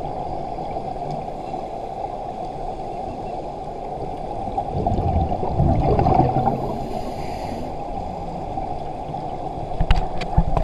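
A scuba diver's breathing heard underwater through a camera housing: a steady low rumble of water, with exhaled bubbles gurgling loudest about halfway through and a faint regulator hiss just after. A few sharp knocks near the end.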